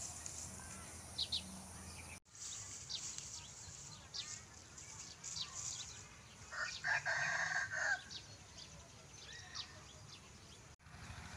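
A rooster crowing once, about six and a half seconds in, for over a second. Small birds chirp throughout.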